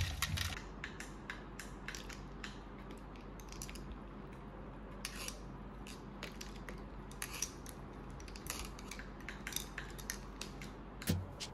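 Spoon clinking against a glass at the start, then faint irregular crackles and clicks from lemon sparkling water fizzing over ice, over a low steady hum.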